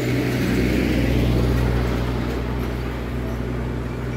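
Motorcycle running along the road: a steady low engine hum under a rushing noise, which swells slightly about a second in.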